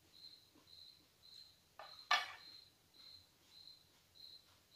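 An insect chirping faintly and steadily, a short high chirp about twice a second. About two seconds in comes a single sharp clink of cutlery against a plate.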